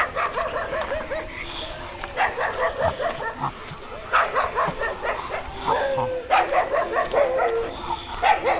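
Dogs barking and yapping in quick runs, with a long whine about six seconds in.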